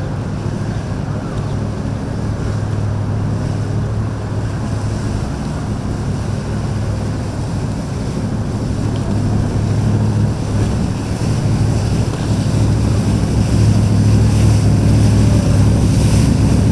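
Motor yacht's inboard engines running at low speed, a steady low drone that grows louder in the second half, with wind and water noise over it.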